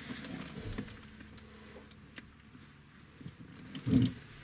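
Faint scattered clicks and handling noises around an open vehicle, then a short dull thump about four seconds in as a person climbs into the seat beside the camera.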